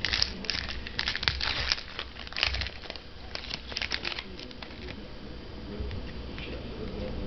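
Trading card pack wrapper crinkling and tearing as a pack is ripped open, with the cards being handled. The crinkling is densest in the first four seconds or so and softens after that.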